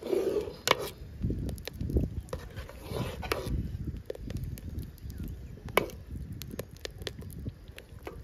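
A metal ladle stirring and scooping milk in a metal pot: the milk sloshes as it is lifted and poured back, and the ladle clinks and scrapes against the side of the pot. Sharp clicks are scattered throughout, with the loudest knocks near the start.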